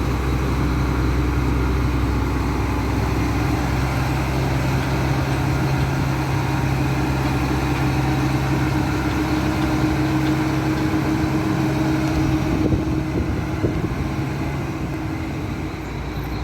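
Howo 340 concrete mixer truck's diesel engine running steadily, an even low hum with no change in speed, fading slightly near the end.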